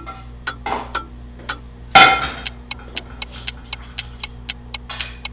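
Ticking clock sound effect timing the cooking, about two ticks a second, quickening to about four a second after about two seconds. About two seconds in, a loud clatter as a frying pan is set down on the gas stove's grate, with softer handling noises around it.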